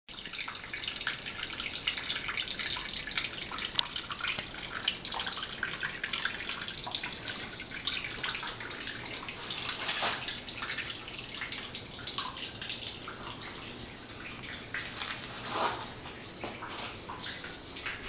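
Water running and splashing down a rock face inside a basement: a steady trickle full of small drips and splashes, growing quieter over the last few seconds.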